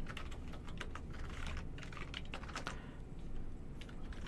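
Typing on a computer keyboard: a run of irregular key clicks as a root login name and password are typed in.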